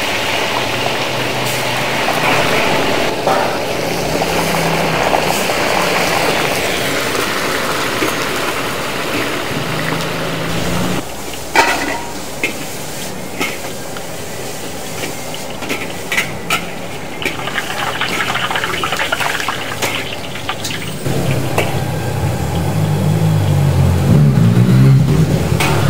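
Fish deep-frying in hot oil, a steady loud sizzle. A few sharp clicks of utensils come a little before halfway, and a louder low rumble comes in over the last few seconds.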